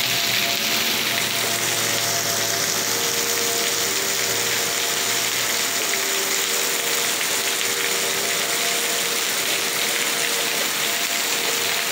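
Torrential rain pouring down in a steady, heavy roar of water.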